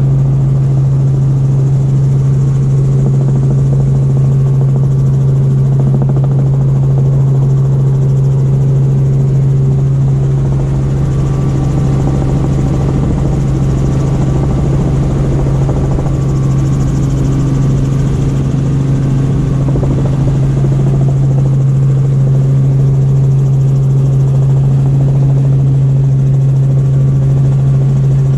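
Helicopter in flight, heard from inside the cabin: a loud, steady drone of engine and rotor, dominated by a strong, even low hum.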